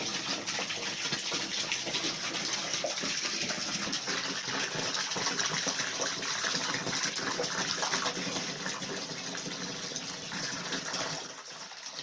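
Water running steadily into a container, filling the turkeys' waterer, until it drops away about eleven seconds in.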